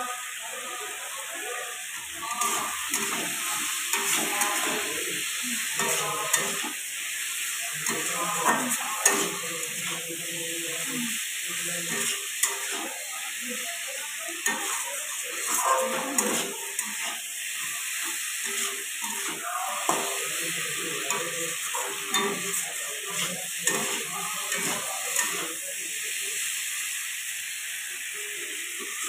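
Spiced potato chunks sizzling in oil in a steel kadai while a flat metal spatula stirs them and scrapes and clinks irregularly against the pan, the masala being sautéed.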